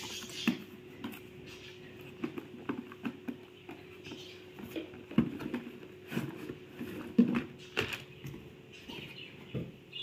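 Cardboard shipping box being opened and handled by hand: irregular scratching, rustling and light knocks of the cardboard flaps and sides.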